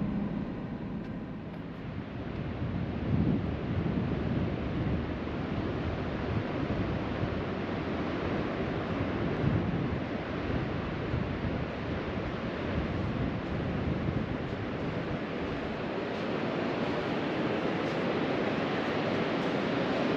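Ocean surf breaking on the beach, with wind gusting across the microphone.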